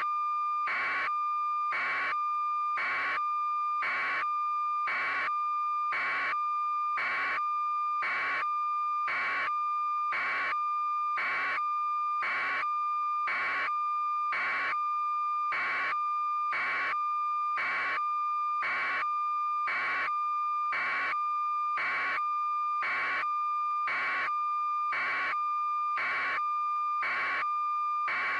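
Electronic beeping tone: a steady high tone with even, rapid beeps at about two a second.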